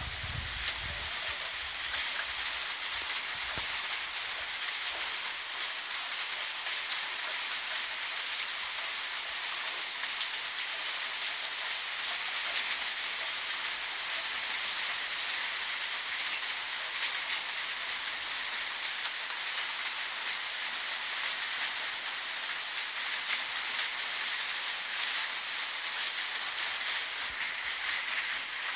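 Steady rain falling, a dense, even patter of drops on the ground and buildings.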